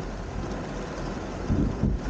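Thunderstorm: steady rain noise over a low rumble, with a louder rumble of thunder building about one and a half seconds in.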